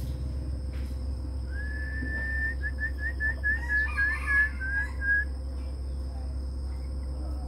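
A clear, high whistle: one long note that rises and holds, then a quick run of about ten short falling notes, ending about three and a half seconds later.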